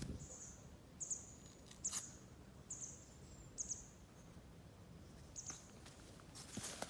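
Faint bird chirping: short, high chirps repeated about once a second, with a single sharp click about two seconds in.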